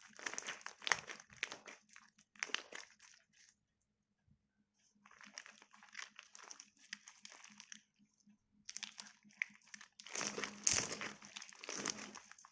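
Slime being worked by hand, making crackling, crinkly bursts in uneven spurts, with a pause of about two seconds partway through.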